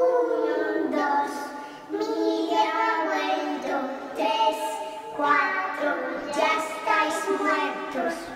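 A child's high voice singing a slow tune in a few long phrases, with no accompaniment.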